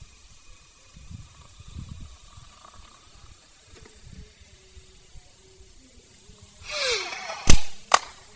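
Vinegar poured from a plastic bottle onto baking soda in a model volcano, the mixture fizzing as it foams. Near the end there is a short hissing rush, then two sharp clicks, the loudest sounds.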